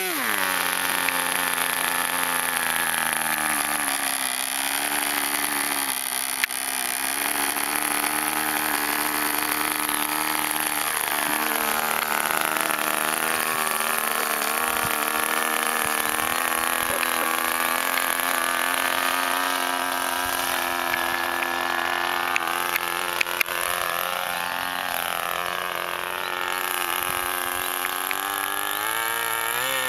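Small pylon-mounted model aircraft engine on an RC motor glider, running steadily at high speed, its pitch wavering a little now and then.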